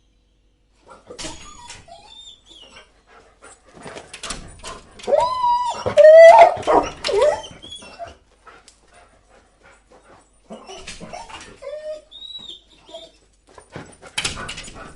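A dog whining in high, wavering whimpers while its paws scrabble and tap against glass. The whining is loudest a few seconds in, dies down, then starts again with more tapping.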